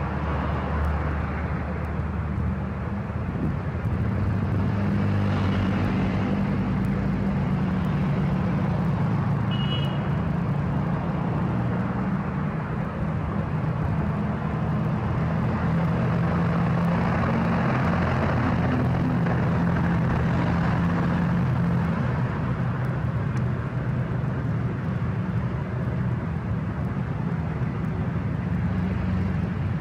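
Heavy trucks' diesel engines running at low speed as they pass, over continuous road traffic noise. A brief high-pitched beep sounds about ten seconds in.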